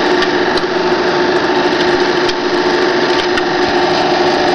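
Silma Alfa 07 Super 8 film projector running, a steady mechanical whir with a hum, while it threads the film automatically. A few light clicks sound over it.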